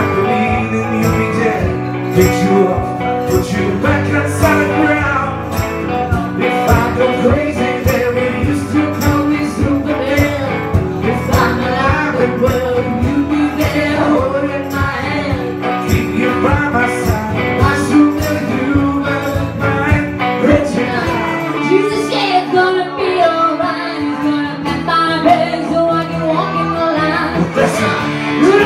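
Live band music: a strummed acoustic guitar and an electric hollow-body guitar with a singing voice. The low end thins out about three-quarters of the way through.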